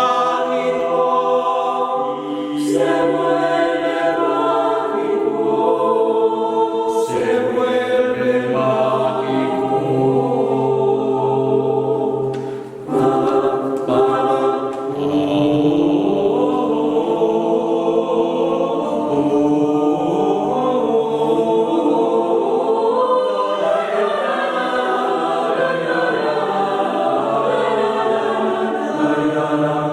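Choir singing a cappella in several parts, with sustained chords that change together and a short breath pause about thirteen seconds in.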